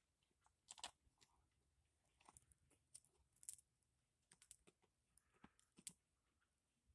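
Near silence broken by faint, scattered clicks and taps, about a dozen over several seconds.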